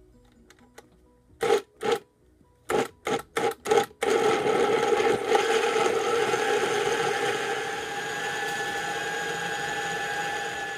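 Countertop blender motor pulsed in short bursts, twice and then four times, then run continuously, chopping new onions in olive oil into a smooth dressing. The running note steadies and eases slightly about two-thirds through as the mixture turns smooth.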